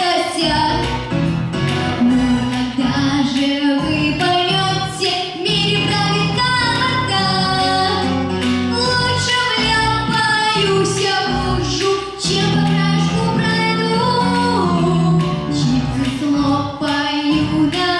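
A song with a woman singing over a steady beat, bass and plucked guitar.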